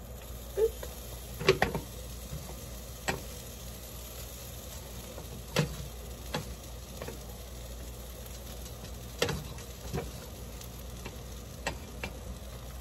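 A kitchen knife cuts semi-thawed pretzels into chunks on a cutting board, with sharp knocks of the blade against the board every second or two, over a steady faint hiss.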